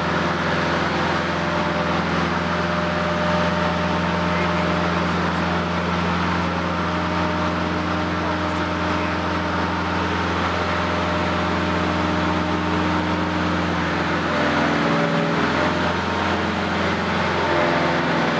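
Loud, steady machinery drone: a low hum with several steady tones above it. The tones shift and waver about three-quarters of the way through.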